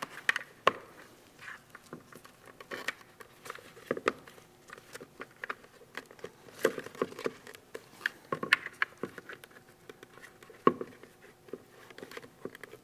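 Plastic suspension clips of an MSA hard hat being pushed into the slots of the hard plastic shell and handled, making scattered irregular clicks and knocks.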